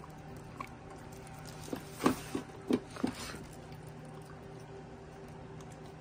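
Shiba Inu eating from a stainless steel bowl: a quick run of about five sharp clicks and knocks as its mouth works in the bowl, a little under two seconds in, over a faint steady hum.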